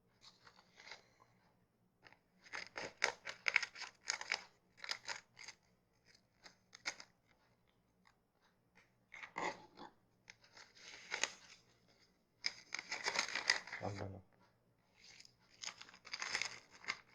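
A seed packet being opened and handled: irregular spells of faint tearing, crinkling and rustling, as bottle gourd seeds are taken out.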